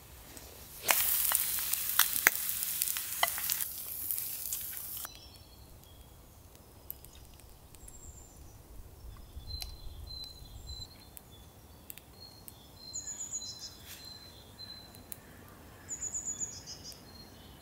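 An egg frying in a pan over a campfire, sizzling with a few sharp pops, from about a second in until it stops at about five seconds. After that it is quieter, with birds chirping.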